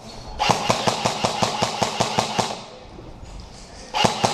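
Airsoft gun firing a rapid string of about fourteen shots, roughly seven a second, for about two seconds, then a short burst of two or three more shots near the end.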